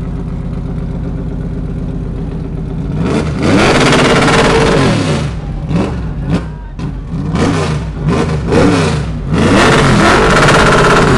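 Stock Car Brasil race car's V8 idling, then revved hard: it climbs about three seconds in and holds high for a couple of seconds, drops back, gives a run of short, sharp throttle blips, then climbs again and holds high until it falls back near the end.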